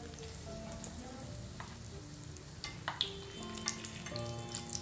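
Breaded chicken patties shallow-frying in a little olive oil in a nonstick pan on a low flame, a steady gentle sizzle. A few light clicks of a spoon and fork against the pan as a patty is turned over.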